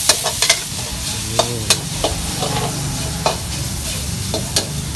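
A long metal spatula scraping and clanking against a steel wok as pork stir-fries with chili and garlic, the oil sizzling steadily under a run of sharp, irregular clanks.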